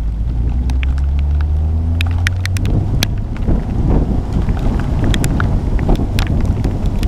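Chase vehicle driving, its engine note climbing over the first couple of seconds as it accelerates, under a steady low rumble of wind and road noise. Scattered sharp ticks sound throughout.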